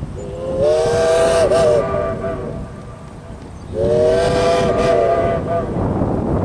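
Steam locomotive chime whistle of Iowa Interstate's Chinese QJ-class 2-10-2 No. 7081 sounding two long blasts of about a second and a half each, a chord of several notes, over a steady low rumble from the passing train.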